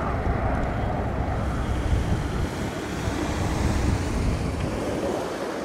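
Steady jet noise from an F/A-18C Hornet's two General Electric F404 turbofans passing at a distance, mixed with wind on the microphone.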